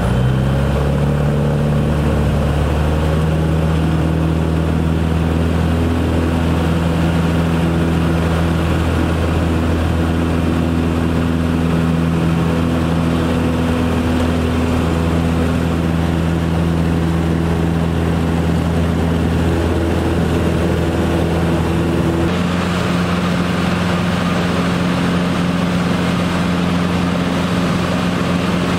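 Cabin drone of a Cessna 310's twin piston engines and propellers in flight: a loud, steady low hum with several stacked tones. About three-quarters of the way through, the sound shifts to a slightly different pitch with more hiss.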